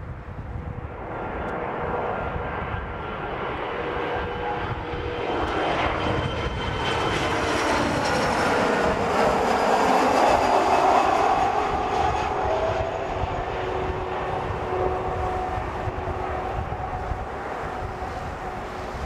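Kawasaki P-1 patrol aircraft's four IHI F7 turbofan engines on landing approach, growing louder to a peak as it passes close overhead about ten seconds in, then easing off. The engine whine drops in pitch as it goes by.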